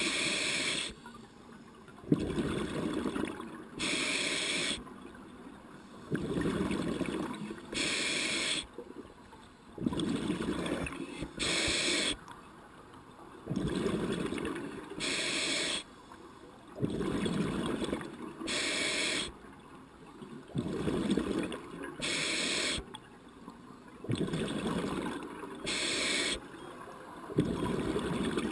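Scuba diver breathing underwater through a demand regulator: a short hiss on each inhale and a longer bubbling rumble as exhaled air vents, about every four seconds, eight breaths in all. A single sharp click about two seconds in.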